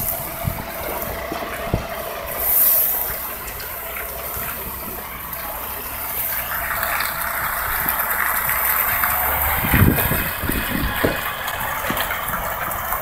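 Heavy-haul tractor unit and multi-axle low-loader trailer passing at close range. The trailer and its load rattle and clank, and the noise grows denser from about six seconds on as the rig draws near, with a few low thumps about ten seconds in.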